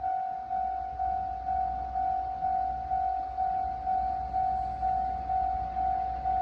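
Japanese railway level-crossing alarm ringing, a single electronic bell tone struck about twice a second, over a low rumble. It is the warning that a train is approaching and the barriers are down.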